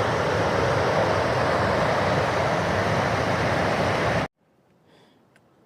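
Steady rush of river water flowing, which cuts off abruptly about four seconds in, leaving near silence.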